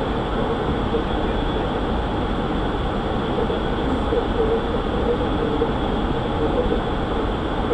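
Steady rushing noise on the flight deck of an Airbus A300-600 in flight, on descent: airflow and the aircraft's running noise, even and unchanging.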